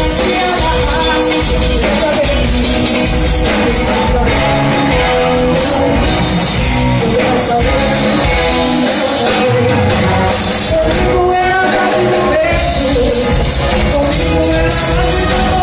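A band playing music with singing, loud and continuous.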